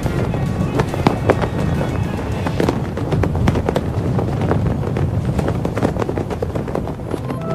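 Music soundtrack with a dense, crackling texture of many irregular sharp clicks over a steady low rumble.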